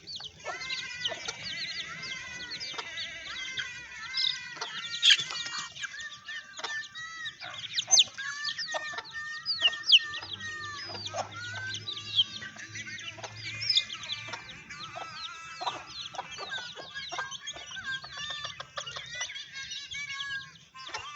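Chickens clucking and peeping without pause: many quick, high, falling peeps over lower clucks, with a few louder calls about 5, 8 and 10 seconds in.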